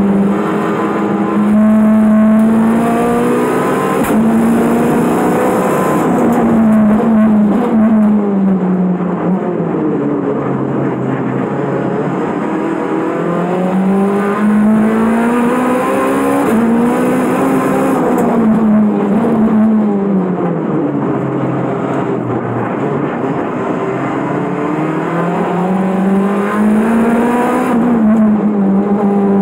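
Turbocharged K24 four-cylinder of a time-attack Honda EG Civic at full throttle, heard from inside the cockpit, its note climbing and dropping with each gear on the sequential gearbox. Twice, about a third and about two-thirds of the way through, the pitch falls far down under braking and downshifts, then climbs again as it accelerates out.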